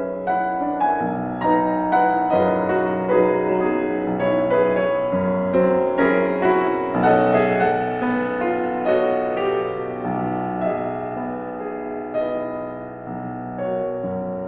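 Background solo piano music in a classical style, notes played in a flowing, moderate-tempo line.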